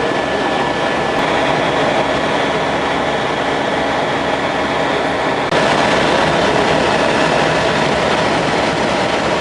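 Helicopter in flight heard from inside the cabin: a loud, steady rush of engine and rotor noise with a thin, steady high whine. The sound shifts abruptly and gets slightly louder about halfway through.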